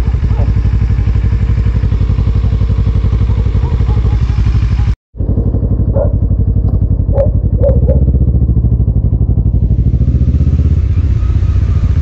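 Motorcycle engine running steadily at low revs, with the sound cutting out completely for an instant about five seconds in. A few short knocks follow, then from about eight seconds the low rumble gets heavier.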